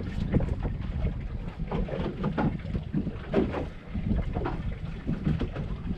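Wind rumbling on the microphone aboard a small fishing boat, with scattered short knocks.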